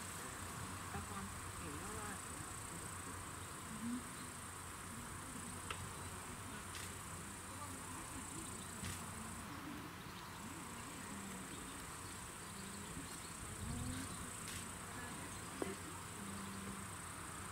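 Insects trilling outdoors: a steady high-pitched drone that stops for about a second around the middle, then carries on.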